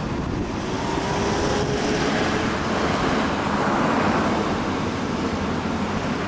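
Cars driving past in street traffic: a steady wash of engine and tyre noise, with a faint engine note rising slightly in pitch over the first couple of seconds.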